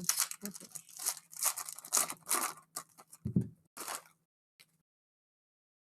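A trading-card pack wrapper being torn open and crinkled in rapid, uneven bursts. The bursts stop about four seconds in.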